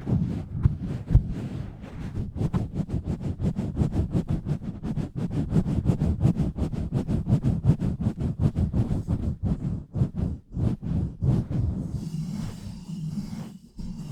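Cupped hands pumping rapidly over a microphone: a fast run of muffled thumps and rustles, several a second, easing near the end into softer, steadier rubbing.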